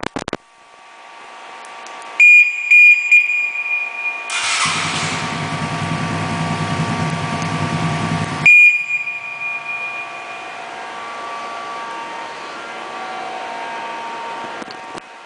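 Suzuki Burgman 125 scooter's remote alarm module chirping in a few high beeps, then the single-cylinder engine starting from the remote and running through its Roncar SS aftermarket exhaust for about four seconds. Another beep comes as the engine sound drops away.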